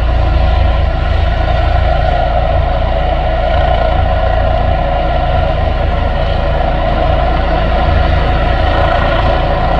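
Air ambulance helicopter running on the ground during start-up, its rotor turning: a steady turbine whine over a low rotor rumble.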